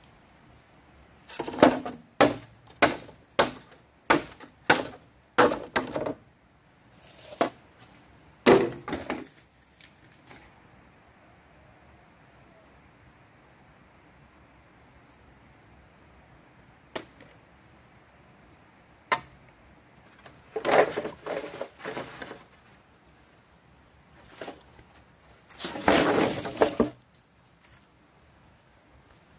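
Bamboo being chopped: a run of about eight sharp strikes roughly every 0.6 s, then scattered single strikes and a short cluster, and a longer, noisier stretch near the end. A steady high insect drone from crickets runs underneath.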